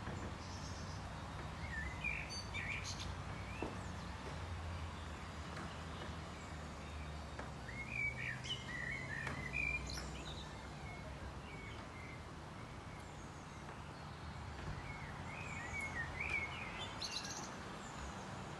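Small birds chirping in three short spells over a low steady hum.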